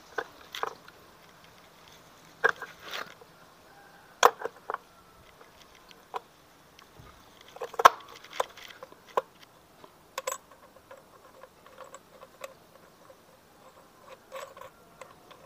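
Irregular metal clinks and knocks from Honda Vario CVT parts and hand tools being handled as the clutch assembly is refitted, with a louder knock about halfway through.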